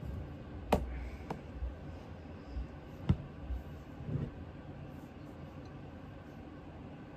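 Handling noise from a shotgun being worked over a table: three sharp clicks and knocks in the first three seconds, then faint rubbing as a cotton pad wipes bluing solution over the steel receiver.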